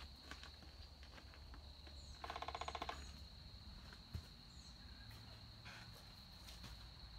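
Faint rural outdoor ambience: a steady high insect buzz with scattered short bird chirps, and a brief rapid rattling trill about two seconds in.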